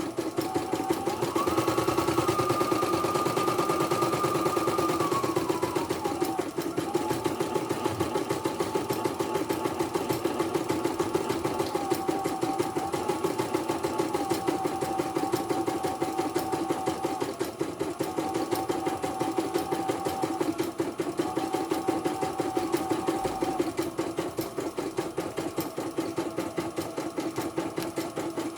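Portable computerised embroidery machine stitching on a test run after repair, running smoothly. The needle hammers steadily and fast, under a motor whine that steps between pitches as the design is sewn.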